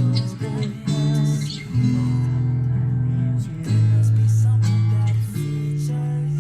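Music: a strummed acoustic guitar over long held bass notes, with no singing.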